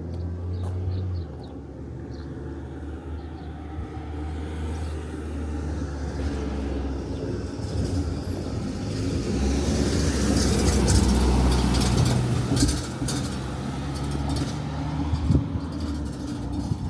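A motor vehicle's engine running close by, with a low steady hum that shifts pitch a few times. The sound grows louder to a peak about ten to twelve seconds in, then eases off.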